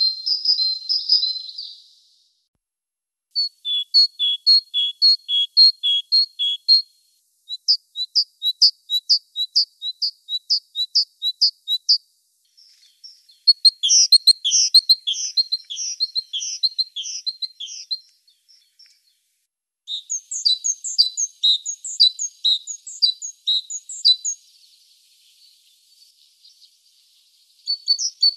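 Great tit singing: about six bouts of high, rapidly repeated notes, each bout lasting two to five seconds and separated by short pauses, the notes coming at about two to three a second.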